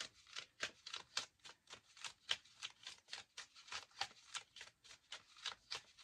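A deck of cards being shuffled by hand: a quick, uneven run of soft card clicks, about four or five a second.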